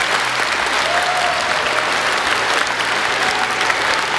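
A large crowd of children applauding, many hands clapping steadily together.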